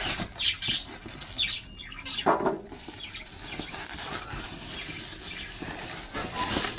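Cardboard box and packing being handled and pulled apart while an air fryer is unboxed, in irregular scrapes and rustles with a few sharper squeaky bursts.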